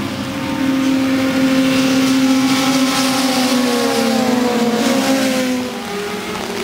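600cc road-racing motorcycles passing at speed on a wet road, engines running at high revs, with the pitch sliding down as one goes by about four to five seconds in. A hiss of water spray from the tyres runs underneath.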